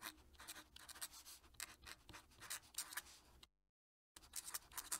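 Fountain pen nib scratching across paper in quick cursive strokes. The strokes stop dead about three and a half seconds in and start again about half a second later.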